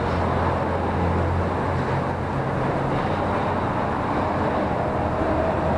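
Car engine running with a steady low hum as a car rolls slowly toward the microphone.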